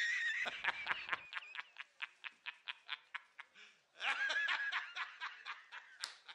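High-pitched cackling laughter in quick pulses, about six a second, that slow and fade, then a second cackle about four seconds in that trails off.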